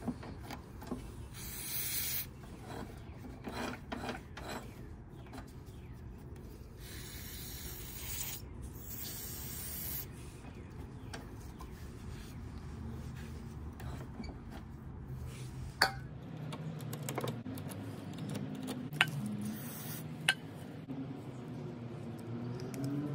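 Shop rag rubbing over a lawnmower's metal drive axle in repeated bursts, wiping gummed grease out of the axle's key groove. Three sharp clicks follow later, a few seconds apart.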